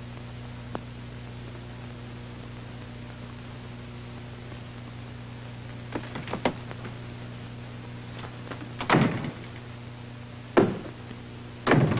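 A door slams and there are other loud bangs: a few light knocks about halfway through, then three loud bangs in the last few seconds, over the steady hum and hiss of an old film soundtrack.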